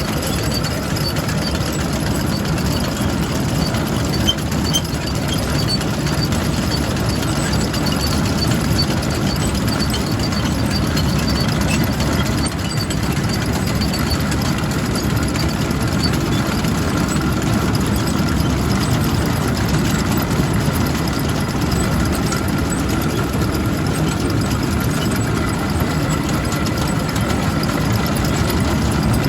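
Farm tractor engine running at a steady speed, with machinery noise, as when picking ear corn.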